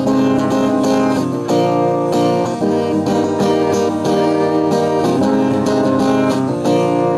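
Acoustic guitar strumming chords steadily in an instrumental passage of a pop song, with no singing.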